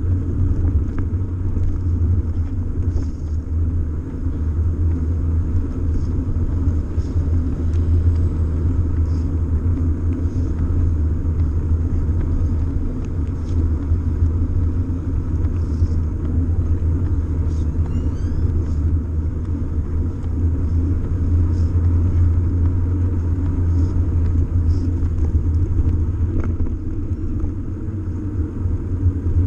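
Steady low rumble of wind buffeting and road vibration on a bicycle-mounted camera while the bike rolls along paved streets, with faint scattered ticks over it.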